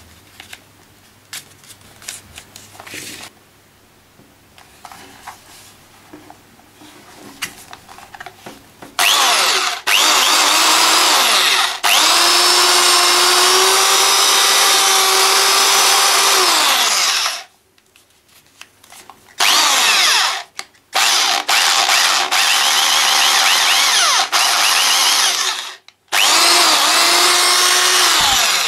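A Peugeot 400W corded electric drill, restored with a new taper-mount chuck, being handled with a few clicks, then run in three long bursts with a steady whine. It spins down between bursts.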